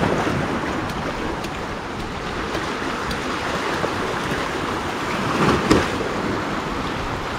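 Small waves washing and splashing over shoreline rocks, with wind on the microphone; a slightly louder wash comes about five and a half seconds in.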